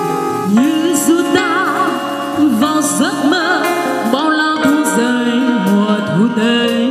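A woman singing a slow ballad into a microphone over a live band, her voice wavering with vibrato above sustained chords.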